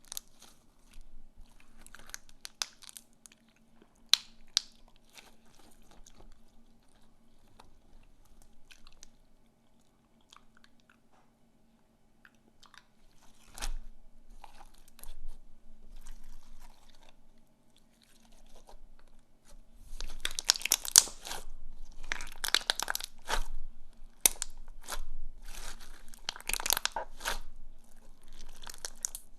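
Slime being squeezed and worked by hand, giving off sharp crackling clicks and pops: scattered at first, then dense and continuous for the last third.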